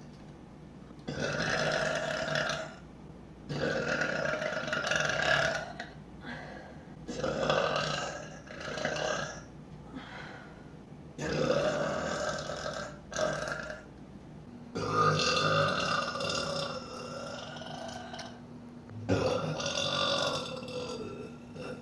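A woman burping loudly: a string of about seven long, drawn-out burps with short pauses between them. The longest lasts about four seconds, a little past the middle.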